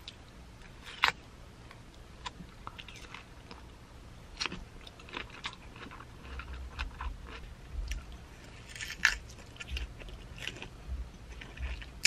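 A person biting and chewing a soft persimmon, with scattered wet mouth clicks and smacks.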